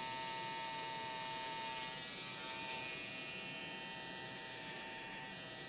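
Andis electric hair trimmer buzzing steadily while it cuts trimmer-over-comb close along the nape, on thick hair.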